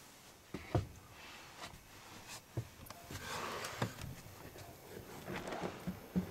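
Footsteps crunching in fresh snow, mixed with a few sharp knocks, the loudest a little under a second in.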